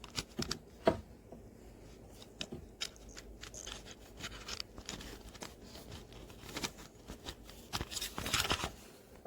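Handling noise from the earbuds, their charging case and USB cable being fiddled with: scattered small plastic clicks and rustles, with a denser flurry near the end.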